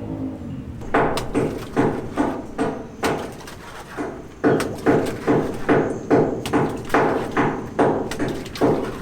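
Hammer blows, roughly two to three a second, each with a short ringing tail, pausing briefly around four seconds in.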